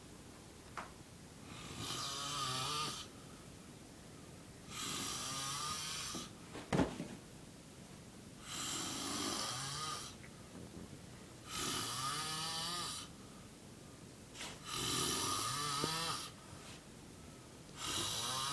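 A man snoring heavily in deep sleep: six loud, rasping snores about every three seconds, each a low drone under a breathy hiss. A sharp click sounds once, a little before the middle.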